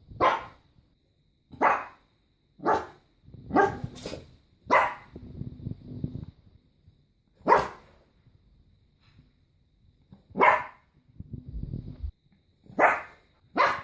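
Puppies barking: about ten short, high-pitched single barks, spaced irregularly, with a pause of a few seconds in the middle.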